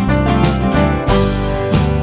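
Background music: strummed acoustic guitar in a country style with a steady beat.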